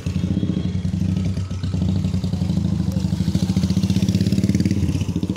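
A motorcycle or scooter engine running close by with a rapid, even pulse. It comes in suddenly and loud, then holds steady.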